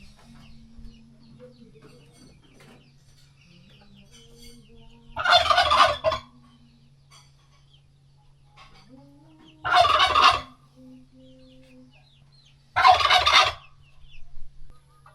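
Domestic turkey gobbling three times, each a short rattling burst of under a second, spaced a few seconds apart, over a faint steady low hum.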